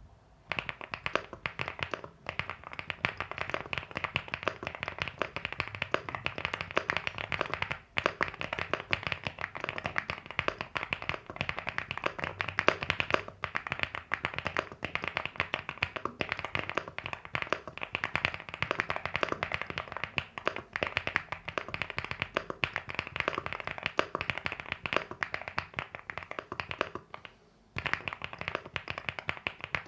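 Fast continuous typing on a LEOBOG Hi8 mechanical keyboard with AKKO V3 Cream Yellow Pro linear switches: a dense stream of key clacks, with short pauses around two seconds in, eight seconds in and near the end.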